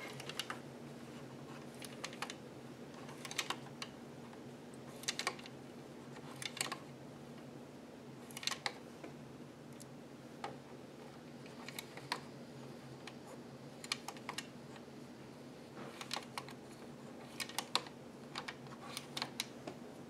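Scattered light plastic clicks, some in quick little clusters, as the needles of an Ultimate Sweater Machine knitting machine are worked by hand one at a time, knitting back stitches and pushing needles into working position.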